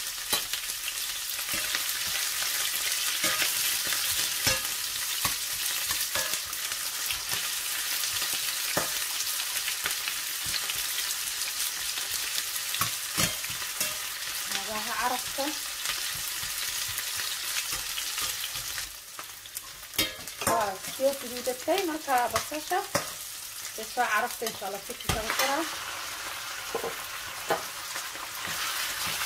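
Sliced onions sizzling in hot oil in a stainless steel frying pan, stirred with a metal turner scraping against the pan. About two-thirds of the way in the sizzle drops and the scraping strokes stand out, then the sizzle comes back near the end as chopped raw chicken goes into the pan.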